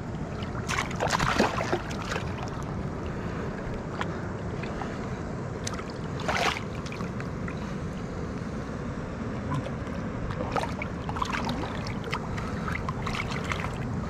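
Steady wash of wind and shallow water, with a few short splashes about a second in, near the middle and toward the end, as a bluefin trevally is held and moved about in shallow water.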